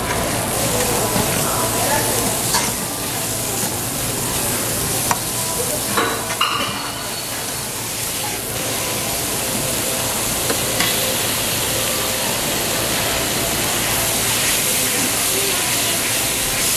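Diced onion, carrot and zucchini sizzling as they are stir-fried in a wok, a metal ladle scraping through them with a steady frying hiss. A few sharp clicks come where the ladle knocks against the pan.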